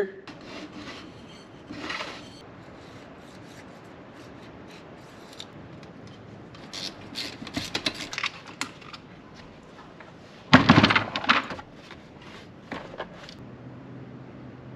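Hand tools clicking and scraping on a lawn mower engine's cylinder head as the rocker arms and valve cover go back on, with a louder clatter about ten and a half seconds in. A low steady hum comes in near the end.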